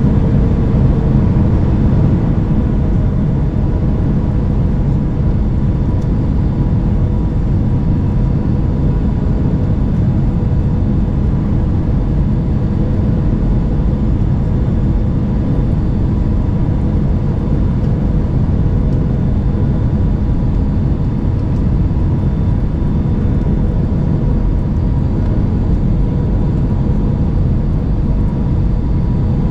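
Steady cabin noise of an Airbus A319 on approach, heard from a window seat beside the wing: a constant low rush of engine and airflow with a faint steady tone above it.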